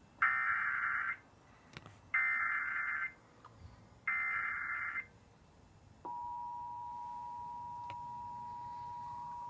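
Emergency Alert System alert: three one-second bursts of the SAME digital header, the warbling data tones that code the alert as a monthly test. About six seconds in, the steady two-tone attention signal (853 and 960 Hz) starts and holds.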